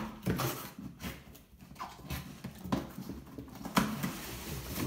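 Cardboard box being opened by hand: the end flap pulled open and the inner tray worked out, with scraping and rustling and several light knocks.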